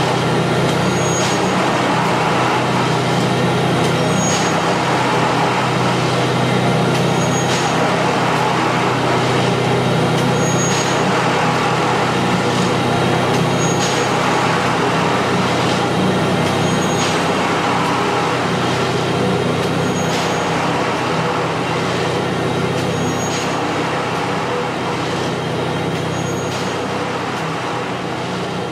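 Recorded sound of a Matisa track tamping machine's diesel engine running steadily, played through the loudspeaker of a model of the machine as it moves. A light tick repeats about every second and a half, and the sound slowly grows quieter near the end.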